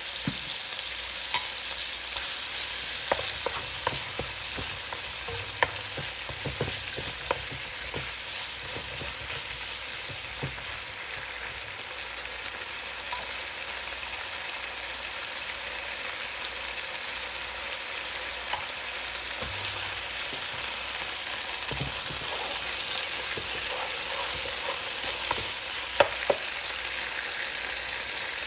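Garlic, onion, bell pepper and sesame seeds sizzling in avocado oil in a ceramic nonstick pan: a steady frying hiss with scattered sharp pops and clicks.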